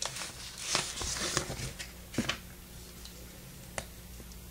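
Hands handling a mailed package on a tabletop: faint rustling of paper and packaging with a few light taps and clicks, the rustling a little louder about a second in.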